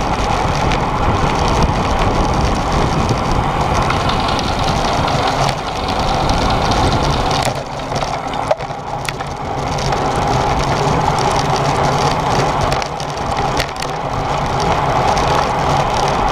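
Steady rush of wind and road noise on a camera riding on a racing bicycle in a pack of cyclists. The noise eases briefly about eight seconds in, with a single sharp knock, and again near thirteen seconds.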